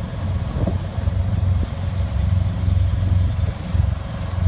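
Low, uneven rumble of a diesel semi-truck engine idling.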